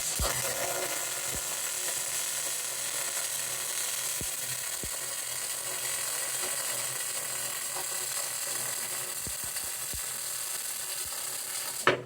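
Electric arc welding: the arc crackles and hisses steadily for about twelve seconds as a bead is laid, then stops abruptly when the arc is broken.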